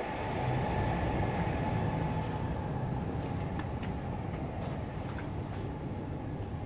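Steady low rumble of city background noise, with a few faint clicks about halfway through.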